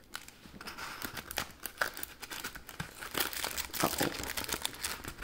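Packaging of a Pokémon booster box crinkling and tearing as the box is opened by hand, in a dense run of irregular crackles and sharp clicks.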